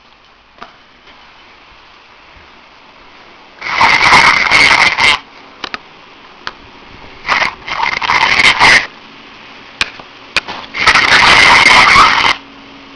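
A person snoring, heard over a phone call: three loud, rough snores, each about a second and a half long, coming every three and a half seconds or so.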